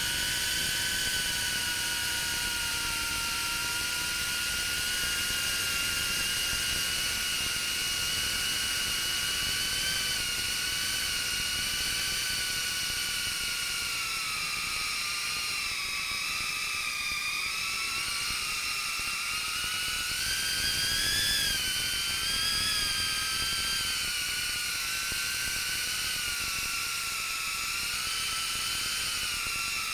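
FPV quadcopter's brushless motors and propellers whining, heard from the drone's own camera. The whine wavers up and down with the throttle and climbs briefly about two-thirds of the way through.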